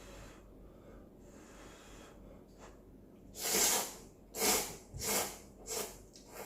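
Instant ramyeon noodles slurped from a bowl: four short, loud slurps close together, starting about three seconds in.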